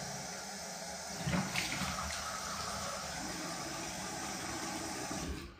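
Bathroom tap running water into the sink, a steady rush with a louder splashing stretch about a second in; the tap is shut off just before the end.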